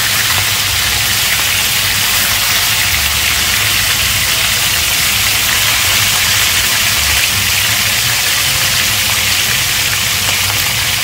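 Chicken thighs sizzling steadily in hot oil in an enameled cast-iron pan as they are turned with tongs to sear the second side, with a low hum underneath.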